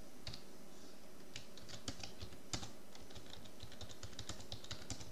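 Typing on a computer keyboard: a quick, uneven run of keystroke clicks, mostly from about a second in.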